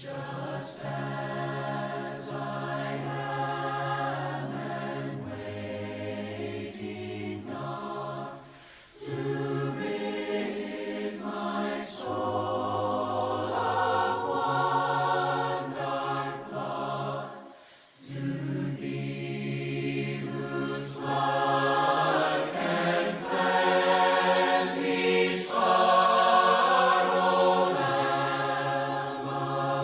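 A cappella hymn singing by a group of voices in parts, with no instruments, the notes held through long phrases with brief breaks between them.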